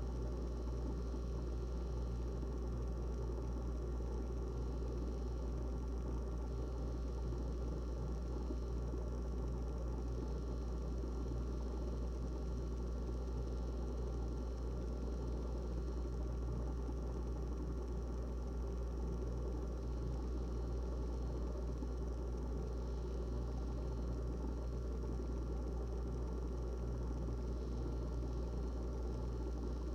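GE refrigerator running with a steady low hum, with a grainy mechanical noise above it and no change throughout.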